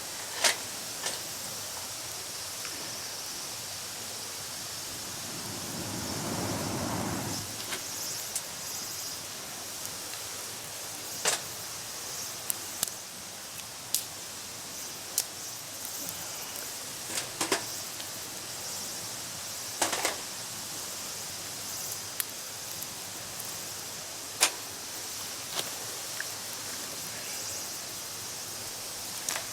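Wood campfire crackling: a steady hiss of burning with sharp, irregular pops every couple of seconds.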